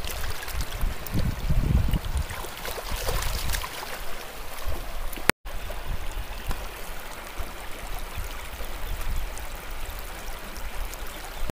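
Shallow river water flowing over stones, a steady rushing with a low rumble, and some splashing in the first few seconds as a toy is rinsed in it. The sound drops out for an instant a little past halfway.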